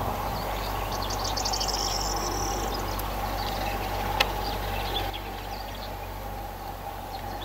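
Outdoor ambience: birds chirping over a steady background drone, with one sharp click about four seconds in.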